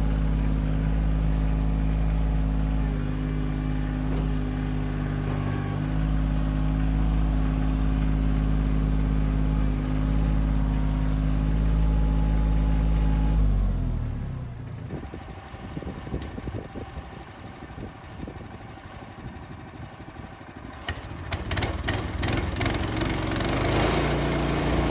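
Compact diesel tractor engine running steadily, then falling in pitch and dropping away about 14 seconds in. After a quieter stretch of rattling, a run of clicks and an engine sound return near the end.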